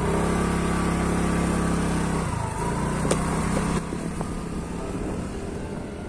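Motor scooter's small engine running as it pulls away. Its tone shifts about two seconds in, then it fades into rushing road and wind noise.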